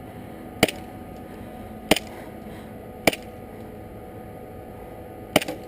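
Airsoft gun firing single shots: four sharp cracks, the first three about a second apart and the last near the end.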